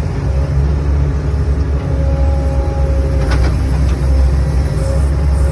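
Loader's diesel engine running steadily as the machine drives along the trail, a loud, even low rumble.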